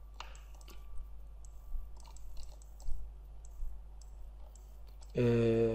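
Computer mouse clicking a number of times, spaced irregularly, over a steady low electrical hum. Near the end a man's voice starts a drawn-out hesitation sound.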